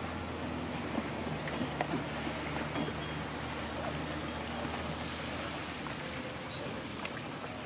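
Steady low motor hum and water noise aboard a bass boat, with scattered light clicks and knocks from handling gear at the livewell.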